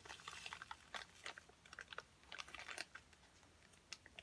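Faint, irregular crunching and clicking from powder being worked into one corner of a plastic zip-lock bag, quieter for a moment near the end.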